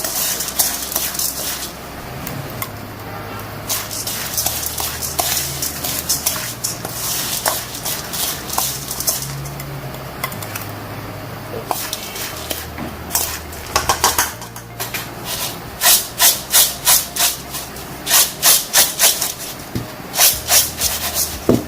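Fried chana dal being stirred with spice masala, a dry rattling scrape of the crisp lentils against the bowl. From about 15 seconds in the mixing turns into a fast, regular run of strokes, about two or three a second, over a low steady hum.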